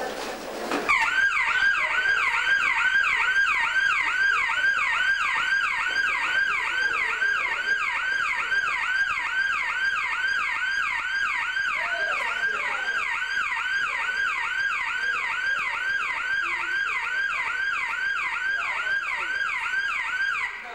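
An electronic warbling alarm tone, siren-like, sweeping quickly up and down in pitch about two to three times a second without any change. It starts about a second in and cuts off suddenly at the end.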